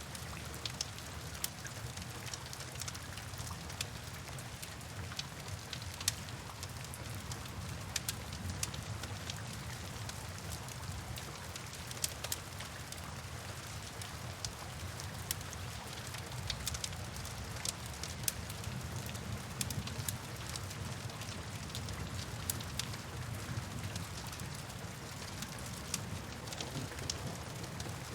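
Steady rain ambience with a deep, even rumble underneath and scattered sharp crackles of a wood fire throughout.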